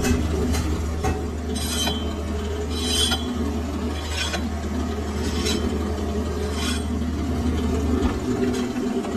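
Metal lathe running with a steady low hum while a hand file is drawn across the spinning metal shaft, about five file strokes roughly a second and a quarter apart. The motor hum stops about eight seconds in as the lathe is switched off.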